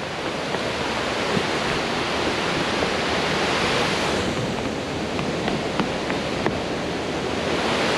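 Water pouring over a dam's spillway: a steady rushing wash of falling water.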